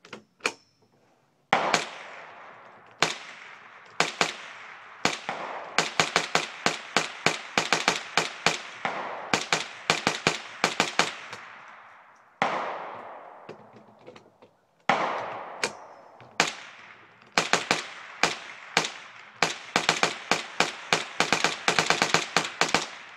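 Hand-cranked Gatling-style gun built from two Ruger 10/22 .22 rifles firing. It starts with single shots about a second apart, then fires long rapid strings as the crank is turned, with a lull partway through. Each shot is sharp and leaves an echoing tail.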